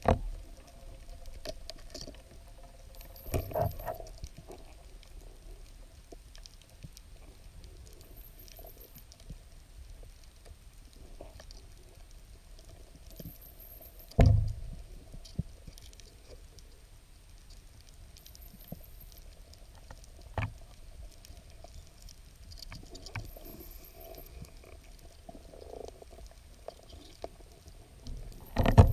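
Underwater ambience picked up by a diver's camera: scattered small clicks and crackles over a faint steady hum, with a dull knock at the start and a louder one about halfway through as the diver grabs the rock.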